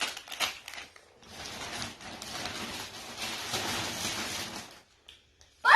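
Packaging being handled and unpacked: a few short crackles in the first second, then a steady rustle for about three and a half seconds that stops near the end.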